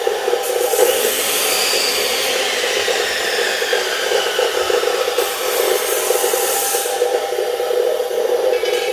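Steady machine noise: a motor running with a continuous rushing hiss and a constant hum, its pitch sagging slightly for a few seconds.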